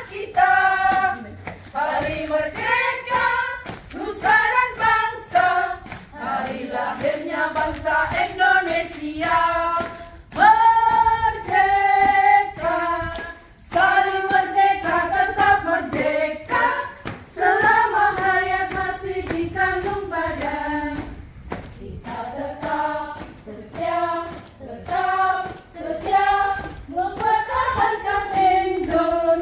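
A group of women singing a marching song together in unison.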